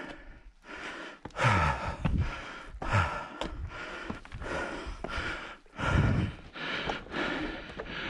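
A person breathing hard close to the microphone: a series of loud breaths, roughly one a second.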